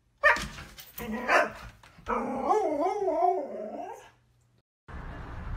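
A husky is vocalising: two short yelping calls, then a long wavering 'talking' howl whose pitch wobbles up and down for about two seconds.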